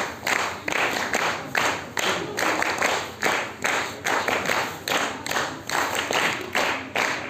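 Audience clapping in unison to a steady beat, about three claps a second.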